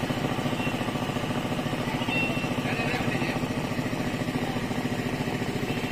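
An engine running steadily at idle: a constant low, evenly pulsing throb.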